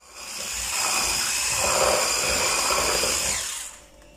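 Electric hand mixer with twin wire beaters running in a bowl of cake batter, beating in freshly added flour. It gives a steady high motor whine, then winds down in pitch and stops a little before the end.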